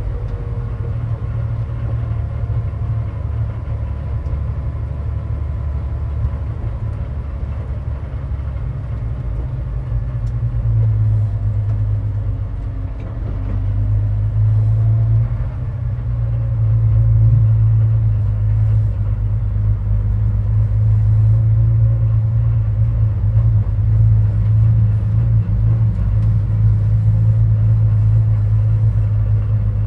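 Air-cooled flat-six engine of a 1977 Porsche 911 race car running at low revs, heard from inside the cockpit as the car rolls along slowly. A steady low-pitched sound that gets a little louder about halfway through.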